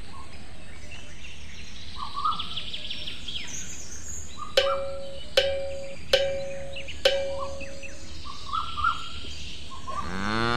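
Birds chirping throughout, with four sharp ringing clanks a little under a second apart in the middle, and a cow starting to moo near the end.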